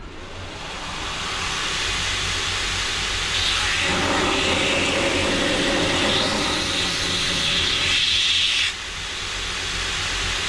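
Belt grinder running with a steel knife blade pressed against the abrasive belt, a steady hissing grind. The grinding gets louder and brighter about four seconds in and drops off suddenly near the end, as the blade is lifted from the belt.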